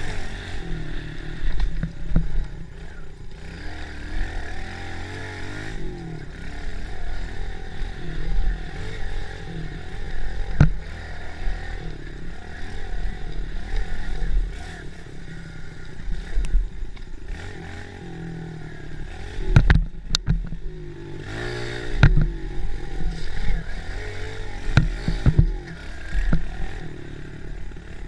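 Minibike engine running under load, its pitch rising and falling as the throttle opens and closes. Sharp knocks and rattles from the bike jolting over the rough dirt trail come through now and then, loudest about two thirds of the way in.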